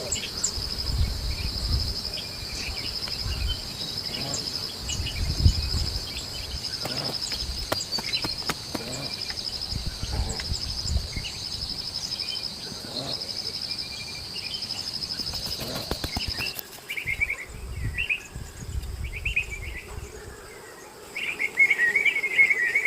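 A steady, high, finely pulsing insect trill that stops suddenly about three quarters of the way through, after which birds chirp. Low thuds are heard under it.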